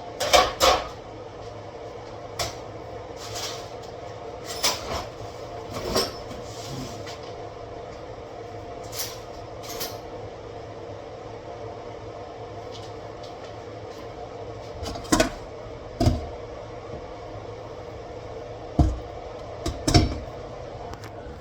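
Scattered knocks and clatters of kitchen utensils and cupboard doors being handled, over a steady background hum. The loudest knocks come about half a second in and in pairs near the end.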